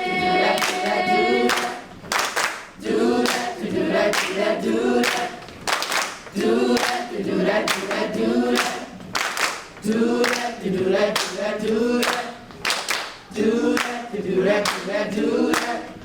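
Middle school chorus singing a cappella in phrases, with sharp hand claps keeping a steady beat throughout.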